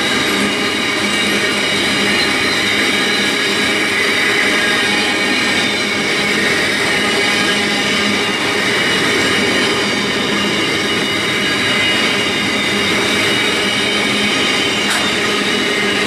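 Container wagons of a long freight train rolling past close by, with steady wheel-on-rail noise and high-pitched wheel squeal.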